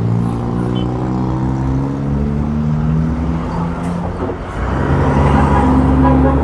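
Motor vehicle engines in close street traffic: one engine hums steadily, pulling slightly higher at first and fading about four seconds in, then a heavier engine with a deep low rumble takes over.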